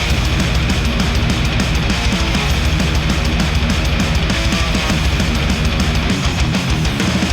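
Loud heavy rock music with guitar and a dense, driving beat, played back through Audeze MM-500 planar magnetic headphones and picked up by microphones at the earcups.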